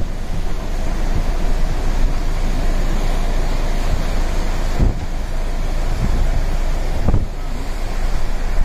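Storm surf breaking against a seawall, a steady rush of crashing waves with wind buffeting the microphone. A couple of low thumps stand out, one about five seconds in and another about seven.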